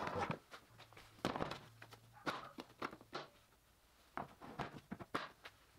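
A run of light clicks and knocks of hard plastic as stacked Milwaukee Packout tool boxes are handled.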